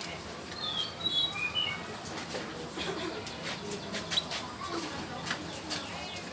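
Canary giving a quick run of short, high chirps about a second in, with scattered light clicks.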